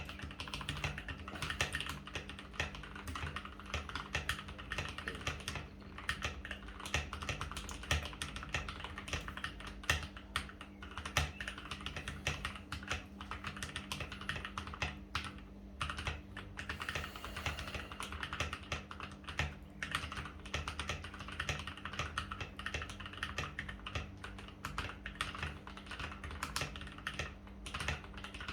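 Continuous typing on a Keychron K8 mechanical keyboard with Gateron Red linear switches that are lubed and filmed, in a case damped with foam: a dense, irregular run of key presses, with a brief lull a little before halfway. A faint steady hum runs underneath.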